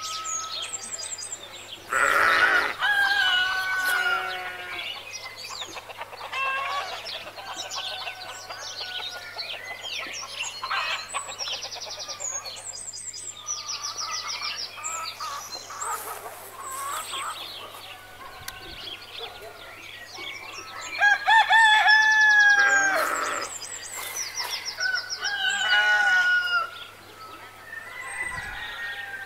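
Farmyard ambience: a rooster crowing several times, loudest about two seconds in and again about twenty-one seconds in, with hens clucking and small birds chirping and trilling throughout.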